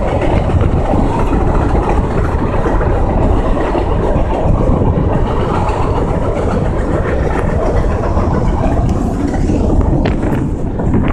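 Freight train of loaded flatcars and container cars rolling past: a steady rumble of wheels on rail, mixed with wind on the microphone. A few handling knocks near the end.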